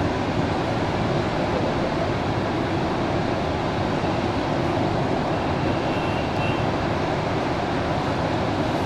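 Fast river water rushing over rocks and a small waterfall: a steady, even rush of white water with no break.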